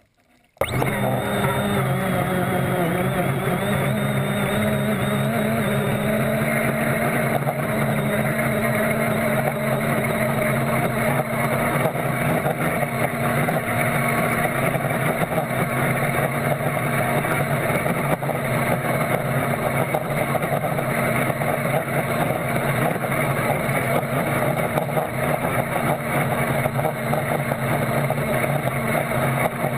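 Electric Miss Geico RC racing catamaran running at speed: a steady motor and propeller drone with several low humming tones over a wash of rushing water. It starts abruptly about half a second in and holds evenly throughout.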